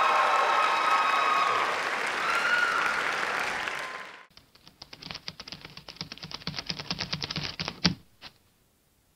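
Audience applauding and cheering with whoops, cut off sharply about four seconds in. Then a run of rapid clicks ends in one sharp hit near the eight-second mark.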